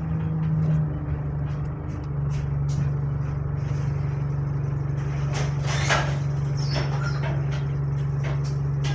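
Bus engine running at a steady pitch, heard from inside the passenger saloon as a constant drone. A few short rattles come over it about five and six seconds in.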